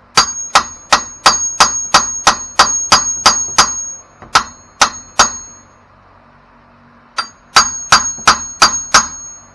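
Hammer blows on steel, about three a second, each with a bright metallic ring: a run of about a dozen blows, a pause of a couple of seconds, then about six more. The hammer is knocking a stubborn, seized outer tie rod end loose from the steering knuckle.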